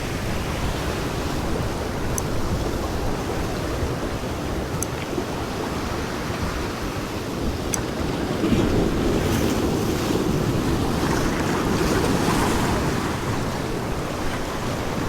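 Ocean surf washing against shore rocks, with wind buffeting the microphone in a steady low rumble; the wash swells a little in the second half.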